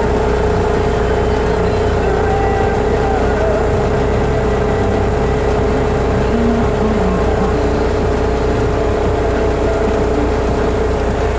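Kenworth truck's diesel engine idling steadily, heard from inside the cab, with a constant whine over the low engine rumble.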